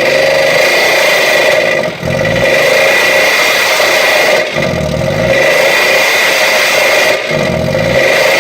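Ford engine running with no oil, held at high revs with a steady high whine over it. The revs drop briefly and climb back about two, four and a half and seven and a half seconds in.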